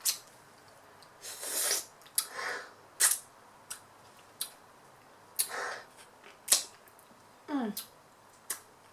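Close-up eating sounds of a person eating curry: sharp wet mouth clicks and lip smacks, short breathy slurps, and a brief voiced murmur near the end.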